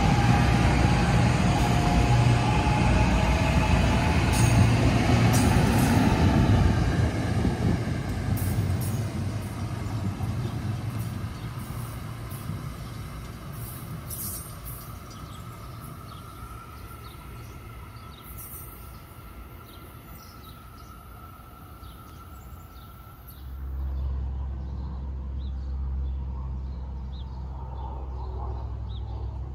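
NJ Transit passenger train running past close by, then fading as it moves away, with a faint steady whine lingering as it recedes. Near the end the sound changes abruptly to a steady low rumble.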